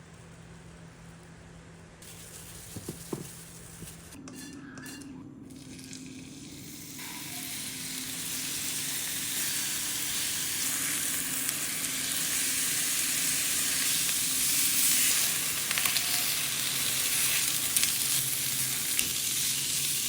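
Food frying in a hot pan: a faint start with a couple of light knocks about three seconds in, then a sizzle that builds over several seconds and holds loud and steady until it cuts off at the end.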